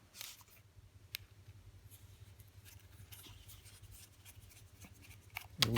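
Faint handling sounds: a few light clicks and short rustles as small tools and parts are picked up and moved on a work surface, over a low steady hum.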